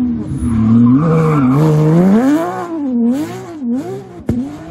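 Porsche 911 rally car's flat-six engine at full throttle. It revs up for about two seconds with a brief dip partway, as at a gear change, then rises and falls several times in quick succession. A single sharp crack sounds near the end.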